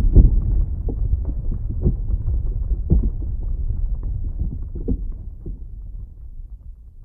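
Tail of an explosion: a low rumble with scattered crackles and knocks, dying away over several seconds and fading out near the end.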